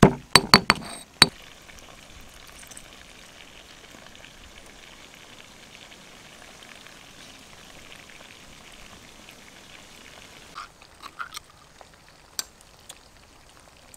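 Stone pestle pounding chilies and salt in a stone mortar, a quick run of sharp strikes in the first second or so. Then a steady soft hiss for several seconds, and a few light clinks of a spoon in a small bowl near the end.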